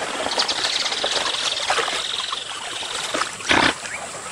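Water trickling and splashing as giant otters move and feed in the shallows, with one short, louder splash about three and a half seconds in. A high buzz runs through the first two seconds or so.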